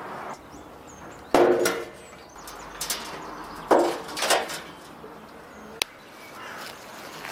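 Metal charcoal chimney starters clanking as they are lifted and set down on a grill's steel frame: two loud, briefly ringing clanks, about a second and a half and almost four seconds in, each followed by smaller knocks. A single sharp click comes near the end.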